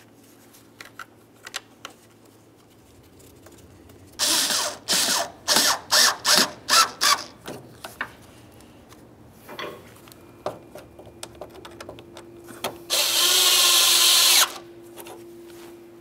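Cordless drill-driver running Phillips-head screws into the plastic windshield cowl. There is a half-second run, then about eight short trigger pulses as the screw snugs down, and near the end a longer run of about a second and a half.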